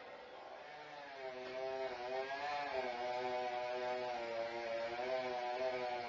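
Chainsaw engine comes up to speed about a second in and then runs steadily, its pitch wavering up and down.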